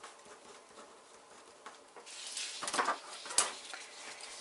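Quiet at first; about halfway in, a printed paper pattern sheet rustles and slides over a cutting mat, with a sharp tap about three quarters of the way in.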